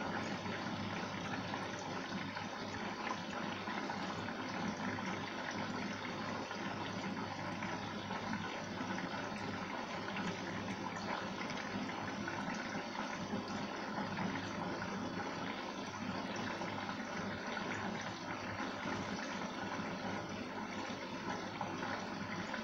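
Arçelik 3340SJ front-loading washing machine filling with water at the start of a synthetic 60 °C wash: a steady rush of water running into the drum and over the load.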